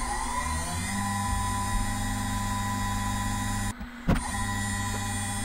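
CNC router running as its small carbide insert cutter slots a steel plate: a steady electric-motor whine from the spindle and axis servos, rising in pitch over the first second and then holding. There is a short break with a click about four seconds in.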